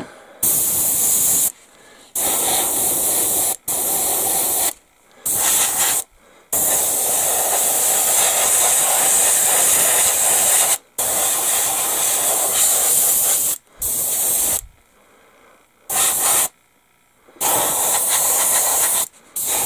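Gravity-feed airbrush spraying primer onto a small plastic model part: a hiss in repeated bursts, from under a second to about four seconds long, broken by short gaps as the trigger is pressed and released.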